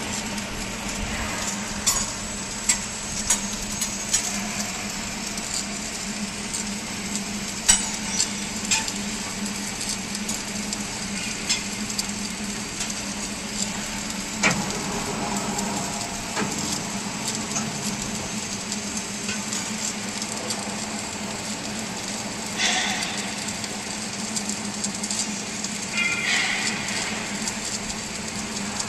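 MIG welding arc crackling steadily, like frying, over a constant hum, with a few sharp metal knocks scattered through it.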